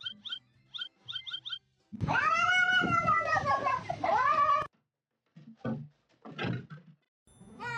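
A domestic cat yowling: a long, drawn-out meow that starts about two seconds in, rises and falls in pitch, and cuts off abruptly, after short high chirps.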